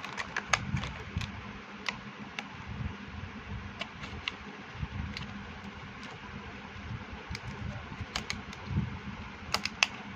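Scattered light clicks and taps of a pen's gift box being opened and handled, with a quick cluster of clicks near the end, over a steady fan hum.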